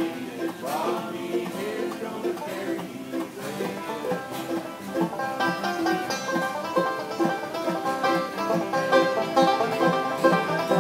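Acoustic bluegrass band playing, led by banjo picking over upright bass, with fiddle and resonator guitar (dobro) joining in.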